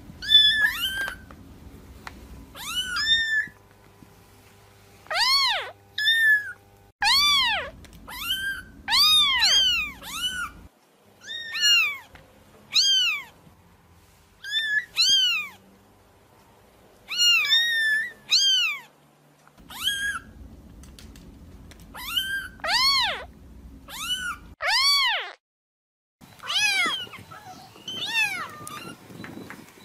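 Kittens mewing: many short, high-pitched mews, each rising and falling in pitch, coming in quick runs with brief pauses between.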